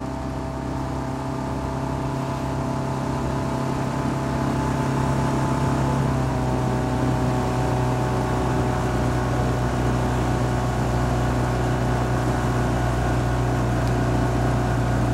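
Outboard motor of a coaching launch running steadily at cruising speed: a constant low hum with higher steady tones above it, growing a little louder over the first few seconds.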